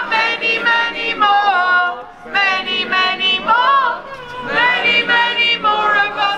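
Voices singing unaccompanied, in three phrases of a little under two seconds each with short breaks between, the notes held and sliding at the ends of phrases.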